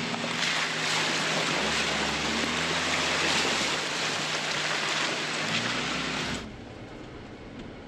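Jeep creeping along an off-road trail, heard close by the front wheel: the engine runs low under a loud, steady rushing hiss of the tyre rolling through wet grass and mud. The sound cuts off sharply about six seconds in.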